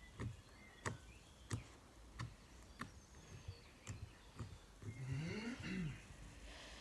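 Clear slime being worked by hand, giving sharp little clicks and pops about every two thirds of a second as air pockets in it burst. About five seconds in, a short low sound wavers up and down in pitch.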